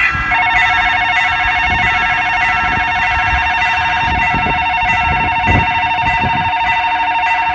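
Level-crossing warning bell ringing rapidly and continuously in a steady two-tone electronic ding, starting just after the beginning: the signal that a train is approaching the crossing.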